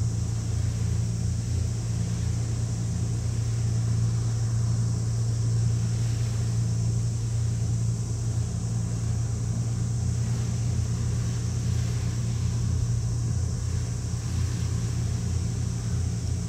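Engines of the Abukuma-class destroyer escort JS Tone heard across open water as a steady low drone.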